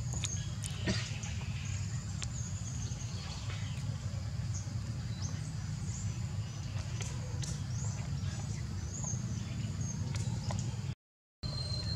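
Outdoor ambience: a steady low rumble under scattered faint high chirps, with a brief dropout to silence near the end.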